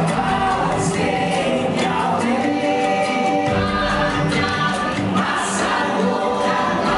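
Choral music from the ride's soundtrack: a choir singing sustained, layered notes that change every second or so.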